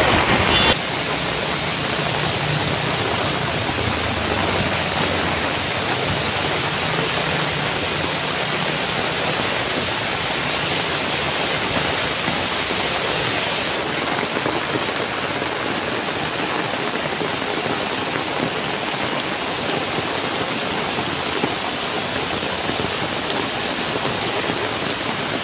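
Heavy monsoon rain pouring steadily, with floodwater running across the street.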